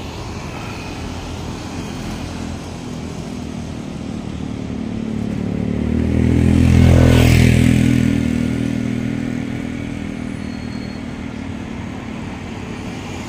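A motor vehicle passing close by on a road: its engine and tyre noise build up, peak about seven seconds in, then fade away. Steady traffic noise continues underneath.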